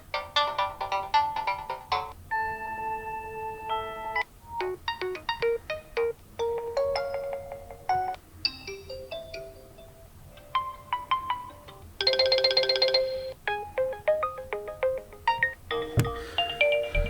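Realme 9 smartphone ringtones previewed one after another: short electronic melodies of chiming, bell-like notes, changing to a new tune every few seconds, with a rapid ringing trill about twelve seconds in.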